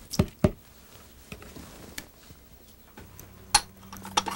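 Sharp knocks at the start, then scattered light clinks of metal pots, lids and dishes being handled, with a low steady hum coming in about three seconds in.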